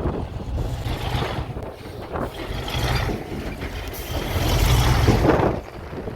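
Heavy diesel engine running under load, growing louder from about four seconds in and easing off near the end.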